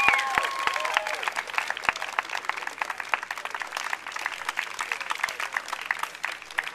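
A small crowd applauding, with a few voices cheering and whooping in the first second; the clapping thins out near the end.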